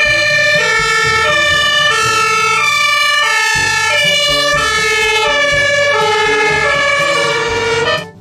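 Two-tone sirens of German fire engines sounding, stepping back and forth between a high and a low pitch, with engine noise underneath. The sirens cut off near the end.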